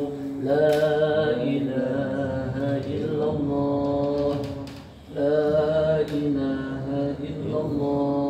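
Men's voices chanting Islamic dhikr after the prayer: long, drawn-out melodic phrases, with a short pause for breath about five seconds in.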